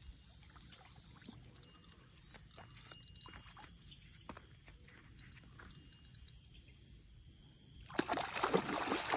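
A hooked catfish thrashing and splashing at the water's surface near the bank, loudest from about eight seconds in. Before that, only faint scattered small ticks and light water sounds.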